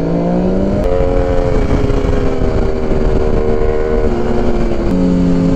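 Ducati motorcycle engine heard from the rider's seat, pulling with its note rising through the first second, then running at a fairly steady pitch with a few small steps up and down, over steady wind rush.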